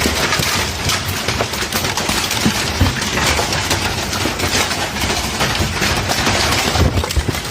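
Large hailstones falling in a dense, steady clatter of countless impacts, mixed with the rush of the storm.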